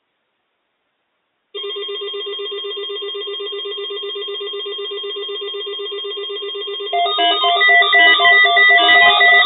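A steady, rapidly trilling electronic tone, like a phone ringer, starts about one and a half seconds in. About seven seconds in it turns louder and busier, with several tones stepping up and down like a melody.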